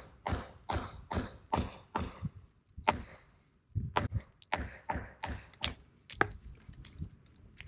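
Hammer tapping a flagstone again and again along a scored line to split off a corner, about two to three sharp taps a second with a short metallic ring after some of them. There are two brief pauses, and the taps thin out to faint ticks near the end.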